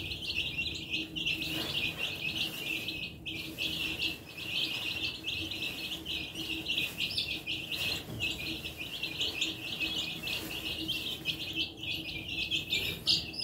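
A flock of baby chicks peeping continuously, many high-pitched peeps overlapping without a break.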